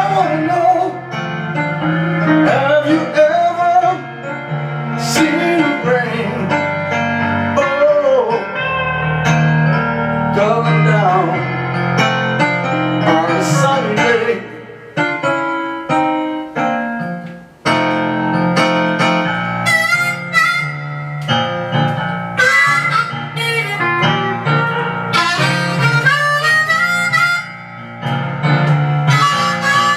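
Blues instrumental break: a hollow-body electric guitar plays lead lines with bent notes over the rhythm, and a harmonica solo takes over in the second half.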